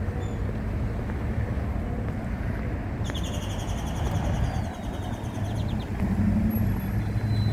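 A bird singing a rapid trill for about three seconds in the middle, with a short whistled note near the end, over a steady low rumble.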